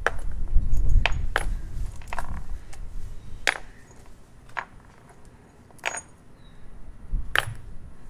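Loose steel bolts, nuts and washers clinking as they are handled and sorted: about eight sharp metallic clicks at irregular intervals, over a low handling rumble that fades out after about three seconds.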